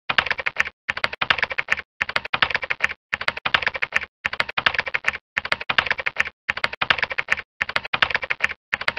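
Computer keyboard typing sound effect: rapid keystrokes in short runs of about a second, with brief pauses between them, about nine runs in all.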